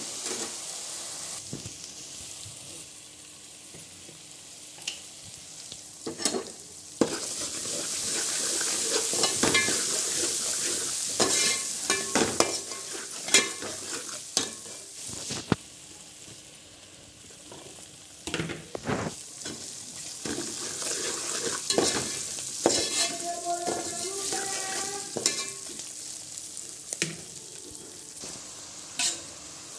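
Hot oil sizzling in an aluminium pot as whole spices and then a masala fry, with a spatula scraping and clicking against the pot as it is stirred.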